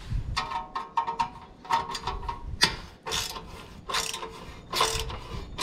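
Ratcheting hand tool worked in short repeated strokes, with a squeaky, rasping edge, loosening bolts that are badly rusted.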